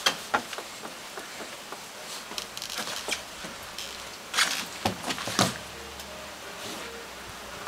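A toddler's shoes and hands knocking on wood while climbing over a sliding-door sill onto a wooden floor: a few light taps, then a cluster of louder thumps about four to five and a half seconds in.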